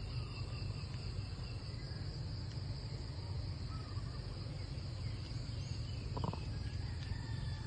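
Steady high-pitched drone of an insect chorus, with a low rumble underneath and a few faint short chirps; a single brief sharp sound about six seconds in.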